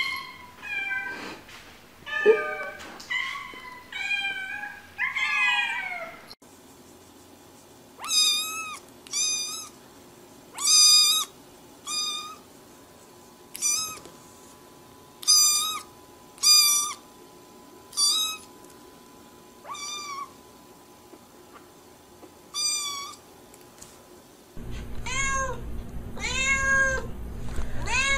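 Cats meowing. A run of varied, gliding meows comes first, then a kitten gives about a dozen short high meows a second or two apart, and near the end a grown cat meows loudly and repeatedly over a low hum.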